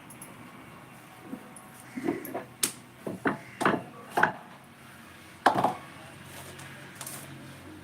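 Eating sounds close to the microphone: a quick run of about eight short, sharp clicks over three to four seconds, over a faint steady hum.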